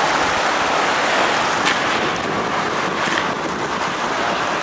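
Overflowing river floodwater rushing, a steady loud hiss with a few faint clicks.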